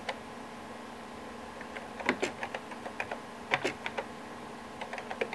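Keystrokes on a computer keyboard as a command is typed at a terminal prompt: a couple of clicks at the start, a pause of over a second, then quick runs of key presses. A steady faint hum runs underneath.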